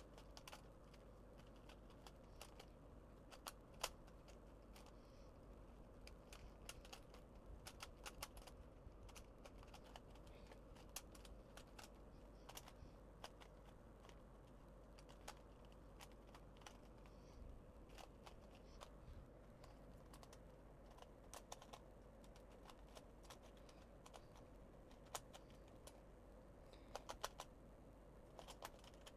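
Cheap dollar-store plastic puzzle cube being turned quickly in the hands during a solve: faint, irregular clicks and clacks of the layers turning.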